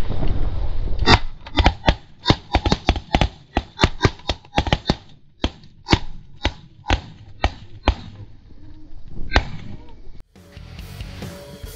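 Rapid volley of shotgun blasts from several hunters firing together, two or three shots a second for about eight seconds and ending in one last shot. Rock music starts just before the end.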